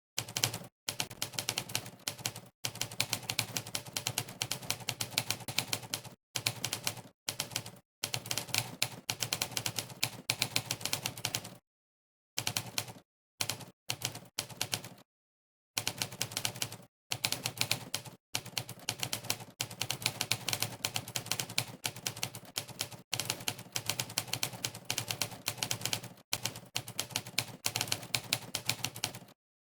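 Monkeytype's typewriter keypress sound effect: sampled typewriter key strikes, one per keystroke, coming in fast bursts of rapid clicks broken by brief dead-silent pauses.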